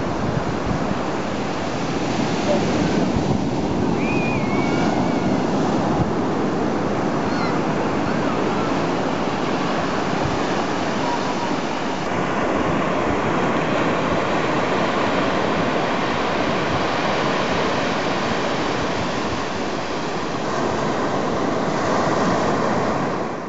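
Heavy Atlantic surf breaking on a sandy beach and washing around the rocks, a steady rush of waves.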